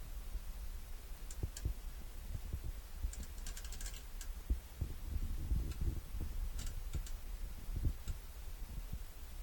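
Irregular sharp clicks from a Damon motorhome's hydraulic system: single clicks scattered through, with a quick run of them about three to four seconds in, over a steady low rumble.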